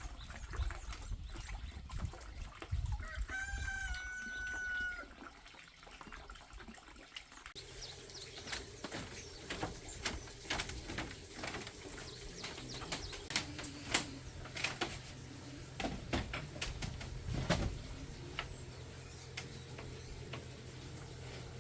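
A rooster crows once, a call of about two seconds, a few seconds in. After an abrupt change in the background partway through, a run of irregular clicks and knocks follows.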